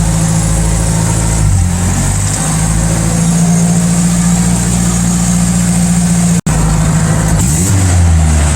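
Turbocharged Toyota 1NZ-FE inline-four engine running at a steady idle. Its pitch drops briefly about a second and a half in and shifts again near the end, and the sound cuts out for an instant just after six seconds.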